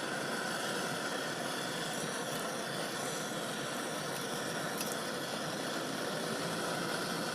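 Steady machine running noise, even and unchanging throughout.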